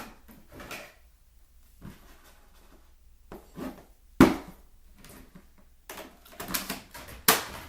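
Handling noises as a cardboard toy box and plastic blaster parts are moved about: scattered rustles and light clatters, one sharp knock about four seconds in, and a quick run of clicks and clatters near the end.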